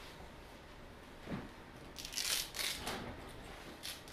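Faint handling and rustling noise: a few short scratchy bursts starting about two seconds in.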